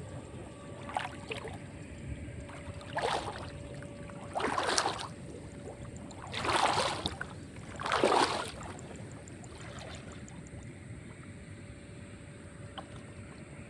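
Water sloshing and swishing in five separate surges a second or two apart, the loudest a little past the middle, over a faint steady hum.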